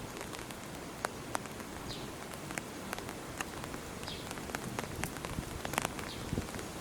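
Steady rain, with irregular sharp drops ticking on a nearby surface. A faint short high chirp sounds every second or two.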